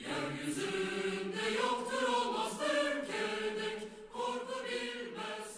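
Choir singing slow, long-held chords that shift about once a second.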